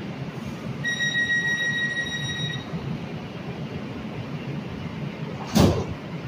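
Door-closing warning on a Metro light rail car: a steady high electronic tone held for about two seconds over the low hum of the stopped train. About five and a half seconds in comes a single loud thump as the sliding doors shut.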